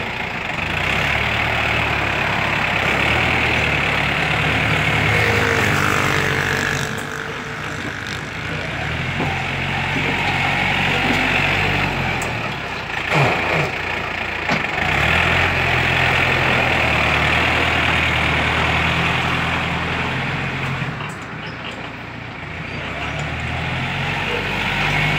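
Yanmar EF514 tractor's diesel engine running under load while pushing soil with its front blade. Its pitch and loudness rise and fall as the load changes, easing off about a third of the way in and again near the end.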